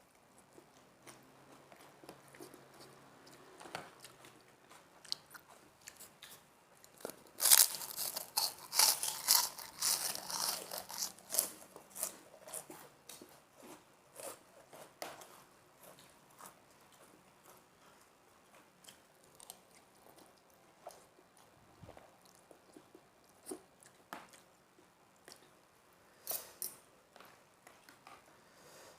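Crunching and chewing of krupuk, crisp Indonesian crackers: a dense run of loud crunches for a few seconds about a quarter of the way in, then scattered bites and chewing.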